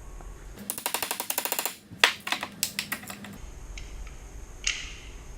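Aluminium utility knife being forced apart with a tool. A quick run of sharp clicks about half a second in, a loud snap near two seconds, then scattered clicks and a few light metal scrapes.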